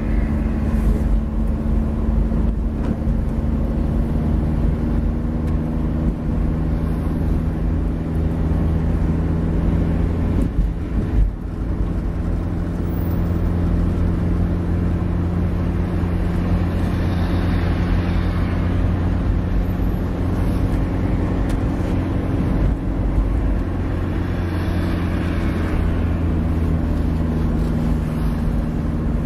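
Car engine and road noise heard from inside a moving car: a steady low drone with a short dip about eleven seconds in, and traffic swelling past twice.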